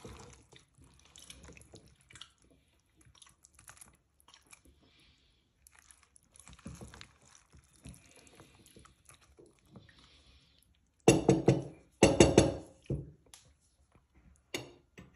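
Spatula tossing fried tofu and pork cubes in sauce in a bowl: soft wet squelching and light scrapes. Three louder short bursts come in quick succession about eleven seconds in.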